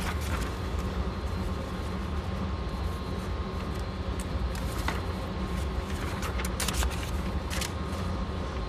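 Steady mechanical hum with a thin whine, from the range's motorized target carrier running the paper target back from downrange, with a few light clicks.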